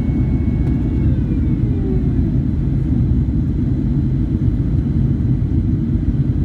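Boeing 767-300ER heard from inside the passenger cabin: a steady, loud rumble of jet engines and airflow, with a faint whine that glides down in pitch and fades about a second in.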